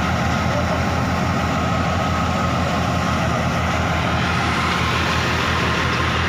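New Holland Fiat 480 tractor's diesel engine running steadily under load as it powers a wheat thresher threshing mustard. There is a deep, constant engine hum and a faint higher whine from the thresher.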